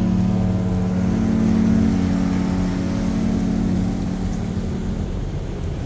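Cruise ship's horn sounding one long, deep, steady blast, the ship's departure signal as it leaves the pier. It fades out about four to five seconds in.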